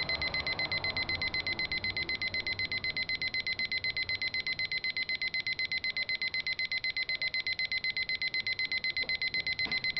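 Westclox Model 1818 digital alarm clock sounding its alarm: an electronic beep on one high pitch, pulsing rapidly and evenly, several beeps a second.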